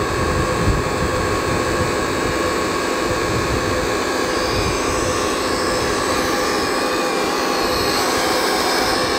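Hydraulic pump of a 1/12-scale Earth Digger 4200XL RC excavator running with a steady whine as the machine slews its upper body round.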